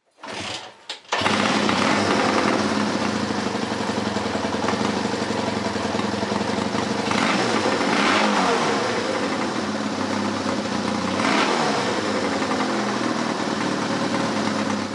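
Motorcycle engine starting: a few short sputters, then it catches about a second in and runs steadily, revved up briefly twice, once around the middle and again a few seconds later, before fading out.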